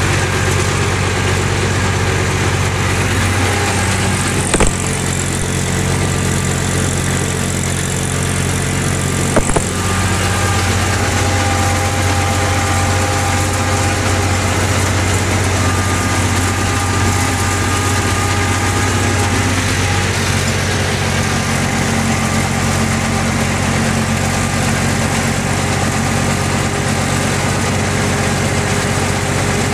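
Ursus C-360 3P tractor's three-cylinder Perkins diesel running steadily under load while pulling a mounted plough, heard from the driver's seat. A short knock comes about four and a half seconds in, and another about five seconds later.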